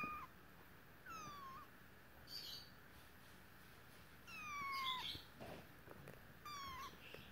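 Maine Coon kitten mewing four times: thin, high-pitched mews that fall in pitch, the third one the longest.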